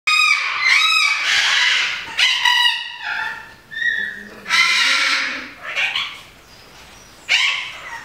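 Hyacinth macaws calling: a run of loud, harsh squawks and screeches, some short and some drawn out for about a second.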